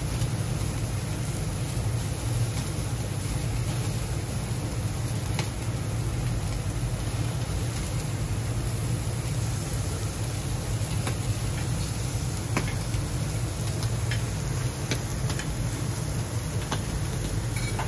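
Commercial gas grill, which also takes charcoal, running under skewered meat: a steady low burner rumble with a sizzling hiss over it. A few light clicks come as skewers are picked up and turned on the grate.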